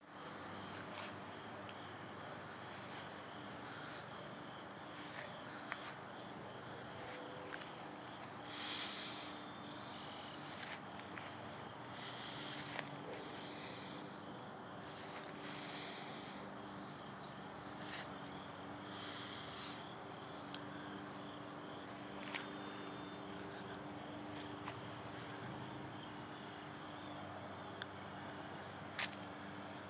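Insects trilling in a steady, rapid, high-pitched pulse, with a few faint clicks and a faint low hum beneath.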